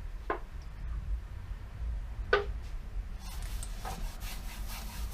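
Hands working on the wooden case of a vintage stereo receiver, with two short squeaky strokes early on, then a rasping rub from about three seconds in.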